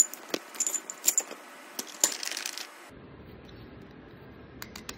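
Rapid light metallic clinks and taps as an adjustable dumbbell is taken apart, its weight plates and threaded handle knocking together. The clinking stops about three seconds in, and a few faint ticks follow near the end.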